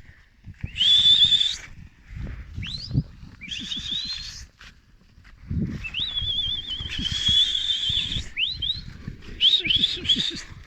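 A person whistling at a plough team in long, breathy, high whistles and short rising ones; one long whistle near the middle wavers. Irregular low scuffing and thudding runs underneath.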